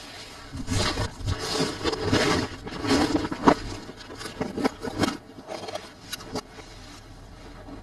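Handling of a toy and its packaging during unboxing: irregular scraping and rubbing with several sharp clicks. It is busiest over the first five seconds, then dies down to a few clicks and goes quiet for the last second or so.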